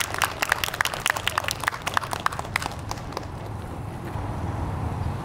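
Audience applause with scattered claps, thinning out and dying away about three seconds in, leaving a steady low hum.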